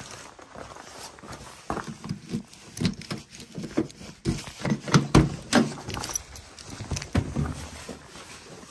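A run of clicks and knocks as a Chevrolet Caprice's front door is unlatched with its push-button handle and swung open, loudest about five seconds in.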